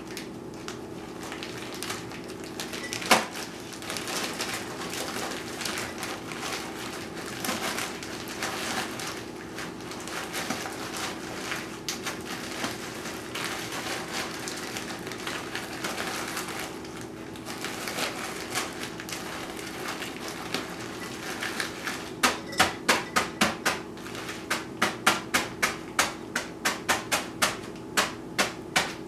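Soft rustling and small ticks of cooked chicken being pulled apart by hand, over a steady low hum. About 22 seconds in, a run of sharp knocks starts, about three or four a second, and keeps going.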